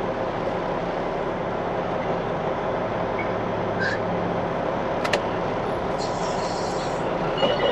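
Semi truck's diesel engine, a Cummins X15, running steadily at low revs as the truck creeps slowly, heard from inside the cab. A single sharp click sounds about five seconds in.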